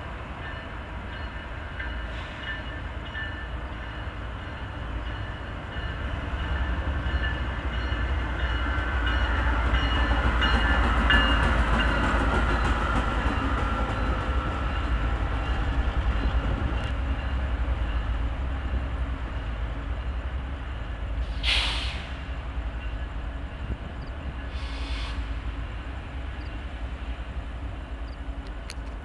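A lone Union Pacific GE AC45CCTE diesel locomotive running light, with its engine and wheels rumbling. The sound swells as it passes, about a third of the way in, then slowly fades as it moves away. Two short bursts of hiss come near the end.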